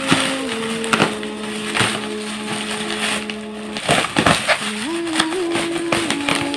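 Bubble wrap and plastic wrapping crinkling in short, sharp rustles as it is handled and pulled open, several times with a cluster about four seconds in. Background music with held notes plays under it.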